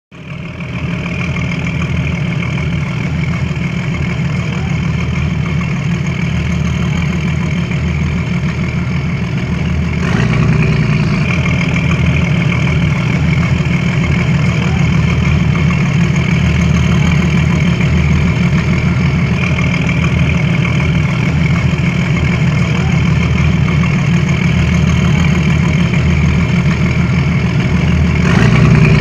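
An engine running steadily at a constant speed, getting a little louder about ten seconds in.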